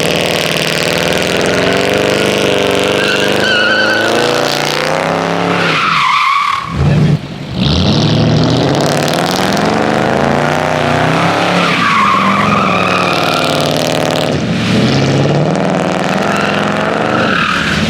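Car engine revving hard, its pitch rising and falling again and again, with tires squealing as the car slides around on wet pavement. It drops away briefly about six seconds in, then comes back sharply.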